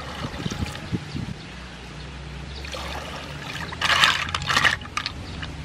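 Water pouring into an aluminium pot full of sea snails in their shells. About four seconds in, a loud brief clatter of the shells knocking together as a hand mixes them in the pot.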